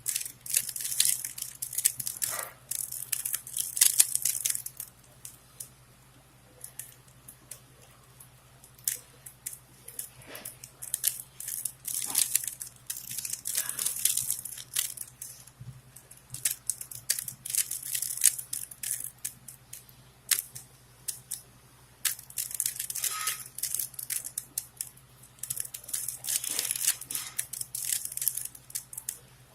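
A plastic 3x3x3 Rubik's Cube being turned by hand, its layers clicking and scraping in bursts of quick turns with short pauses between them.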